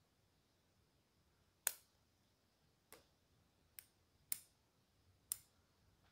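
Bonsai scissors snipping shoots and leaves off a bald cypress: five sharp snips spread over a few seconds, the first the loudest.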